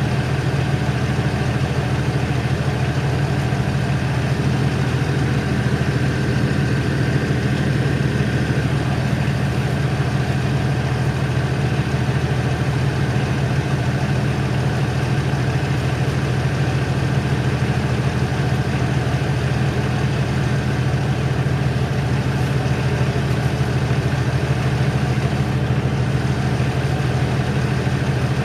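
Inline-six passenger-car diesel engine idling steadily, with no revving.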